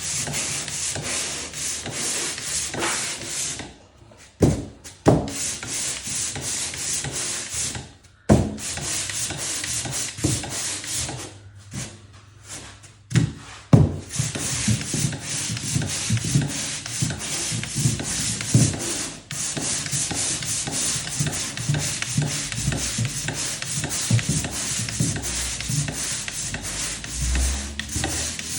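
Drywall being sanded in quick, rhythmic back-and-forth scraping strokes. It stops briefly a few times, with a few sharp knocks.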